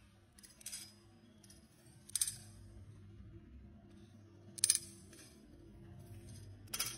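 Butterfly knife (balisong) being flipped: sharp metallic clicks and clinks as the swinging handles strike each other and the blade, four distinct clicks spaced one to two and a half seconds apart, the last one loudest near the end.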